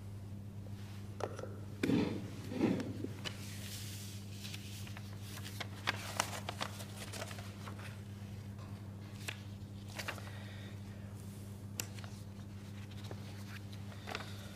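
Quiet room tone with a steady low hum, broken by scattered small knocks, clicks and rustles, and a couple of brief low sounds about two seconds in.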